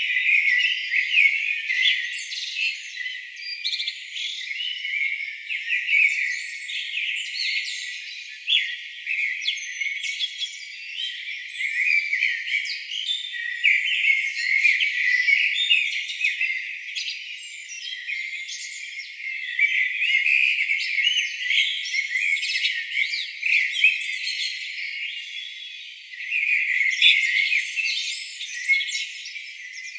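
A dawn-chorus style mix of several songbirds singing at once: dense, overlapping chirps and quick trills all the way through. Everything below the birds' pitch range is filtered out, so it sounds thin and high.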